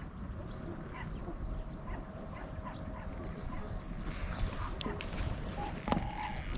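Podenco hunting dogs yipping, with one sharper yelp near the end, over steady low background noise.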